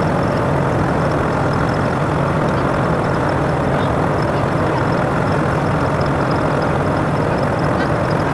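Heavy engine running steadily at a constant speed, with a dense machine rumble.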